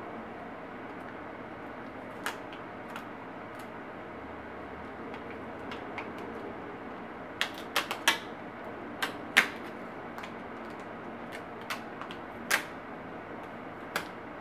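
Sharp plastic clicks and taps from a Toshiba laptop's case parts being pried and handled with a small screwdriver: a few scattered clicks, then a quick run of them a little past halfway, the loudest soon after.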